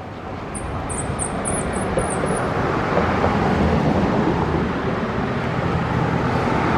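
Road traffic noise swelling steadily, with a quick run of about eight short, very high bird chirps in the first few seconds.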